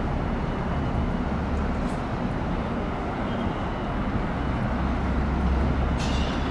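R188 subway train running: a steady low rumble of wheels and running gear on the track, with a brighter hiss coming in suddenly near the end.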